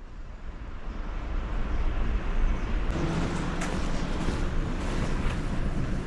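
Steady low rumble of a vehicle on the move, building up over the first second.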